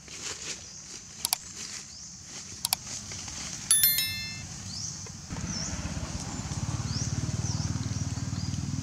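Subscribe-button sound effect: two sharp mouse-click pairs, then a bright ringing bell chime, the loudest sound. About five seconds in, a steady low pulsing drone starts, with faint high chirps over it.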